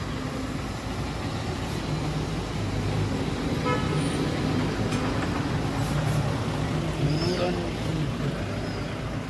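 Lorry's engine running as the truck drives slowly past close by, growing louder in the middle as it draws level.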